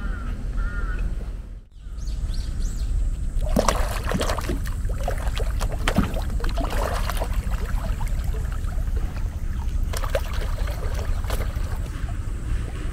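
Water splashing and slapping at the surface of a moat in two spells, over a steady low rumble. A crow caws near the start.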